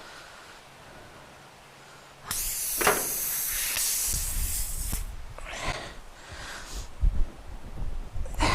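Air hissing loudly out of a trailer tire through the puncture as the plug is pushed in, for about two and a half seconds before cutting off, followed by low rumbling and a few knocks from handling the tire and the plug tool.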